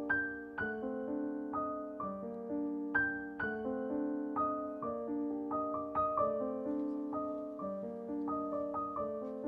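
Background piano music, with notes and chords struck about two to three times a second and each one fading away.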